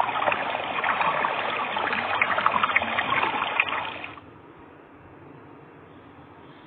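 Rushing water noise, an even hiss with a few small clicks. It lasts about four seconds, then falls away to a faint hiss.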